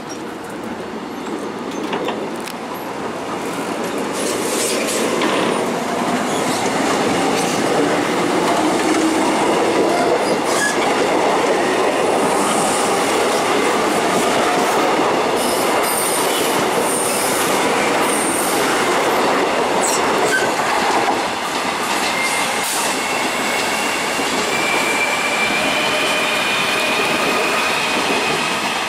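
A Korail Line 1 ten-car electric commuter train running past along the platform. Its wheels clatter and squeal on the rails, and the noise builds over the first few seconds, then holds steady. A thin high whine rises slowly over the last several seconds.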